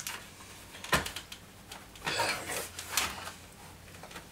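Plastic casing of a WD My Cloud drive enclosure being prised apart by hand: a sharp click of a clip letting go about a second in, then scraping and rubbing of the plastic shell.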